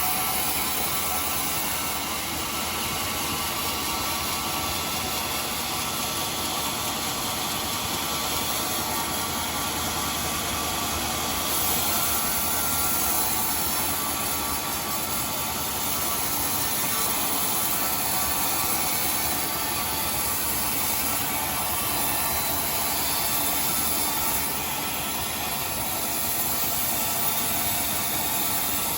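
Sawmill saw running steadily through timber: a constant, unbroken machine noise with a strong hiss.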